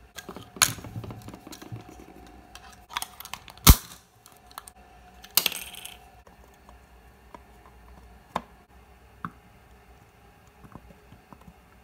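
Clicks and clatter of small hard parts being handled and set down on a workbench, with one sharp knock a little under four seconds in and a short scraping rattle just after five seconds. Later only a few faint, scattered ticks.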